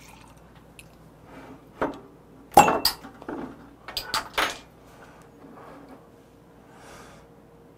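Glassware handled on a wooden table: a shot glass, a beer glass and a glass beer bottle set down and picked up, giving a few short knocks and clinks. The loudest are two sharp knocks about two and a half seconds in and a quick cluster around four seconds.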